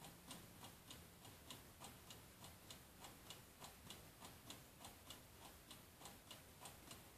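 Faint, steady ticking, about three evenly spaced ticks a second.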